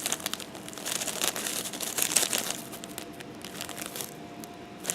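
Packaging crinkling and rustling as it is handled, in irregular scrunches.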